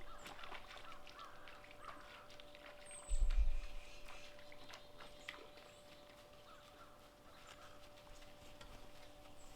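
Faint bird calls in open country, with scattered small ticks and crackles and a short low thump about three seconds in.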